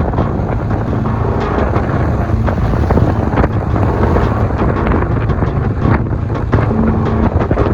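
A car driving on snow-covered streets: steady engine and road rumble with wind noise on the microphone, broken by frequent short knocks and crunches.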